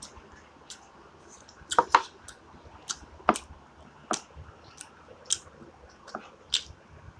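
Close mouth sounds of a person chewing crispy fried chicken: irregular short clicks and smacks, loudest about two seconds in.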